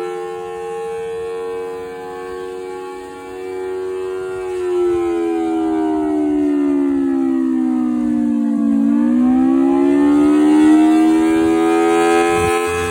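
Federal Thunderbolt 1000AT civil defense siren from 1954 sounding its two-tone chord, holding steady, then sliding down in pitch for about four seconds and climbing back to full pitch. This is one slow wave of the attack signal.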